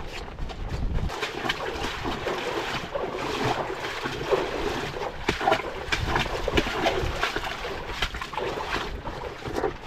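A canoe being moved over rough ground: a steady run of irregular knocks, scrapes and footsteps, with gusts of wind rumbling on the microphone.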